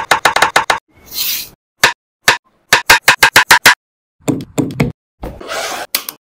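Quick runs of sharp knocks from kitchen work: about seven strikes a second at the start and again in the middle, single knocks between, and short swishing noises.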